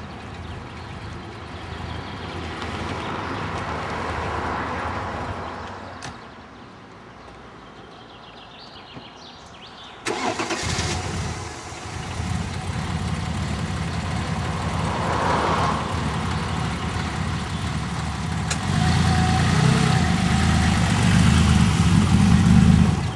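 TVR Tuscan S's 4.0-litre straight-six engine. After a quieter spell it starts with a sudden jump in level about ten seconds in and then runs steadily, getting louder in the last few seconds as the car pulls away.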